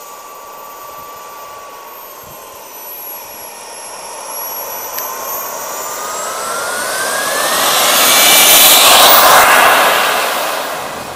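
RC model jet whining at a steady idle, then spooling up with a rising whine from about five seconds in as it rolls for takeoff. It is loudest a few seconds later, then fades as it moves off down the runway.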